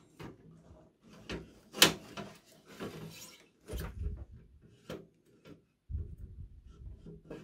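An 8TB Seagate Barracuda hard drive being pushed and worked into the metal drive bay of a desktop PC case. Scraping and sliding, broken by a series of knocks and clicks, the sharpest about two seconds in.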